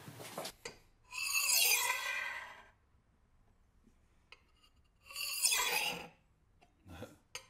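Butter knife blade dragged across a kitchen countertop past the microphone: two scraping whooshes about four seconds apart, each swelling and fading over a second or so, then a short fainter scrape near the end.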